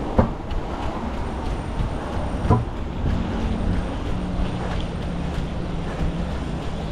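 Steady rumbling wind and movement noise on a runner's body-worn microphone, with two sharp knocks about two seconds apart and a low steady hum from about three seconds in to near the end.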